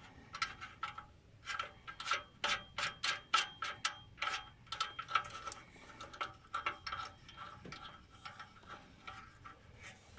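Ratchet wrench clicking in short, uneven strokes as the nuts on an exhaust muffler clamp are tightened; the clicks thin out near the end.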